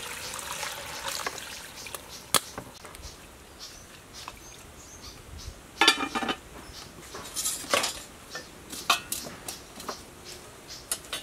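Aluminium pot lid being set onto a large cooking pot: a few separate sharp metal clinks and a louder clatter about halfway through.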